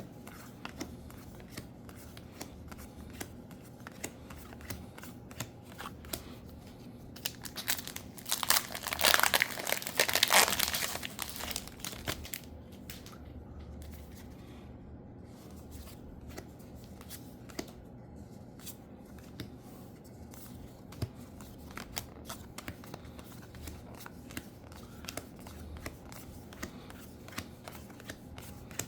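A Spider-Man trading card booster pack wrapper being torn open and crinkled, loudest in a burst of tearing and crumpling about a third of the way in. Soft ticks and rustles of handling run on around it.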